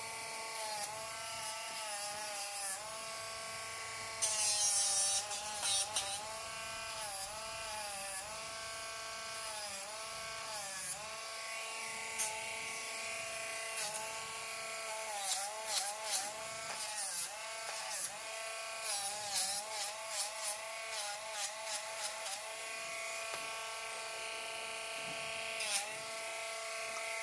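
Cordless Dremel rotary nail grinder running with a steady whine while grinding down a dog's nails, its pitch dipping each time the sanding drum is tapped against a nail. Harsh scratchy grinding about four seconds in and again in a run of quick taps from about twelve to twenty-two seconds.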